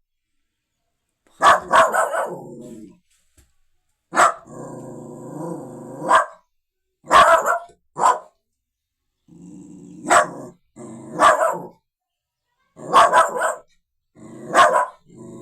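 Puppy barking sharply about ten times at irregular intervals, with lower, longer growling grumbles between some of the barks.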